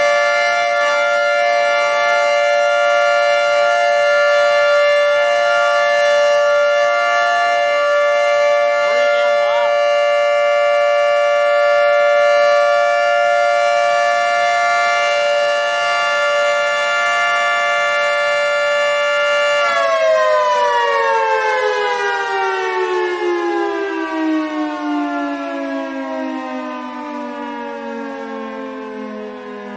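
Federal Signal 2T22 dual-tone outdoor warning siren sounding the steady Alert signal, a loud two-note chord held constant. About two-thirds of the way through, the signal ends and the siren winds down, its pitch falling steadily as it fades.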